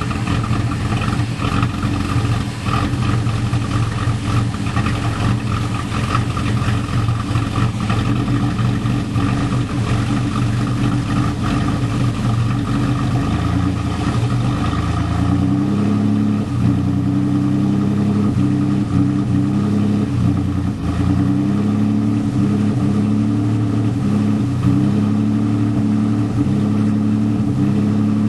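2000 GMC Sonoma's 4.3-litre V6 running at idle through a Spintech Prostreet muffler, dual tailpipes and no catalytic converter. The exhaust note is steady, then shifts and wavers in pitch from about halfway through.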